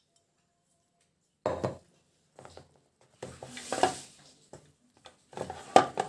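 Mixing a damp bread-crumb dough in a steel bowl: irregular scraping and knocks against the bowl, starting about a second and a half in.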